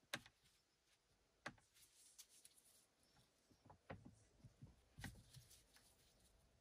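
Faint sharp clicks and light scraping of a small pry tool working at the plastic lens of a sun-visor vanity mirror light, with a click right at the start and others about a second and a half, four and five seconds in.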